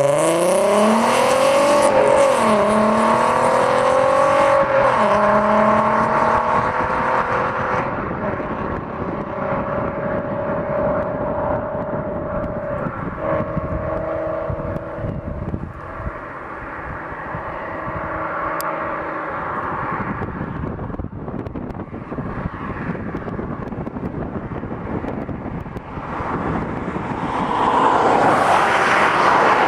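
2004 VW R32's 3.2 L VR6 through a full Billy Boat exhaust, accelerating hard away and revving up through the gears, with shifts about 2 and 5 seconds in, then cruising as it fades into the distance. Near the end an approaching vehicle grows louder.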